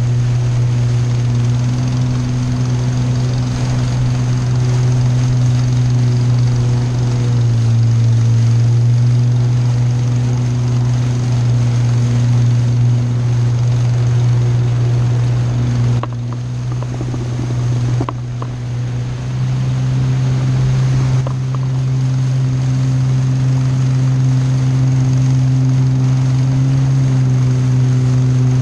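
Boat engine running steadily under way, a loud even hum at one pitch that dips briefly twice about two-thirds of the way through.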